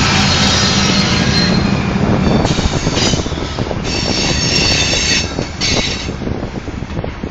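Norfolk Southern diesel locomotives running as they pull away, their engine drone fading over the first couple of seconds. Then the grain train's covered hopper cars roll past, wheels squealing high on and off and knocking over the rails.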